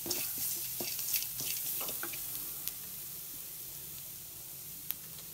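Tempering spices (dried red chillies, curry leaves, cumin, pepper and crushed garlic) sizzling in hot oil in a kadai while being sautéed to drive off the raw smell. The sizzle eases slightly and is broken by a few sharp clicks, one of them about five seconds in.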